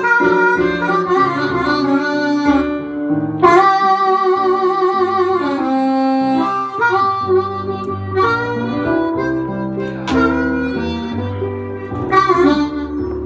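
Blues harmonica solo played cupped against a vocal microphone and amplified, with long held and wavering notes. An electric keyboard accompanies it with a low bass line underneath.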